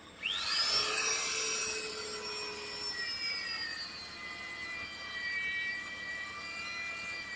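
Magnetic drill's electric motor starting up with a quick rising whine, then running at speed with a steady high-pitched whine. Its pitch sags slightly a few seconds in.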